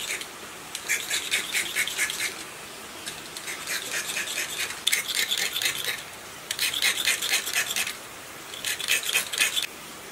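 Fast scraping strokes of a small hand blade on the ends of a generator stator's enamelled copper winding wires, stripping the enamel, in runs of about a second with short pauses between.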